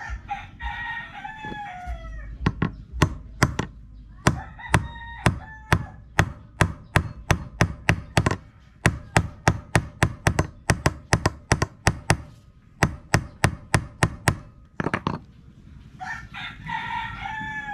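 A steel hammer striking a concrete nail, about three blows a second with short pauses, punching a hole through a flattened piece of stainless steel on a wooden block to make the eye of a fishing hook. A rooster crows at the start and again near the end.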